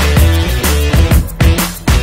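Upbeat background music with a steady drum beat over a heavy bass line.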